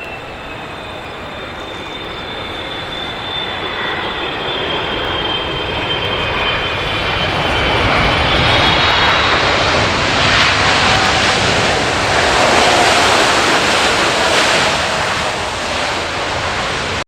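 Jet airliner's engines passing close by: a high turbine whine sliding slowly down in pitch while the roar builds to a peak about twelve seconds in, then begins to ease.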